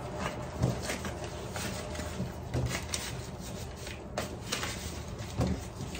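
Kitchen handling noises: a scattering of light knocks and rubbing as things are moved about on the counter.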